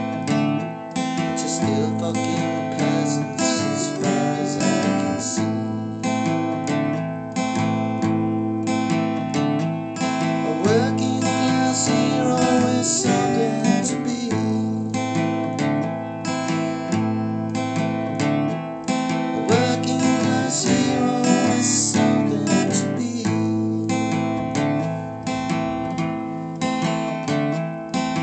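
Steel-string acoustic guitar played in a steady, rhythmic strummed chord pattern.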